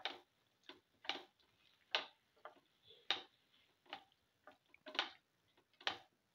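A utensil clicking and scraping against the pan while it stirs a thick yogurt, tomato and winter melon mixture. The sharp knocks come about once a second, with softer scrapes between them.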